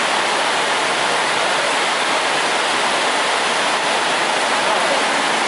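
Steady, even rushing hiss with no distinct events, like rain or running water.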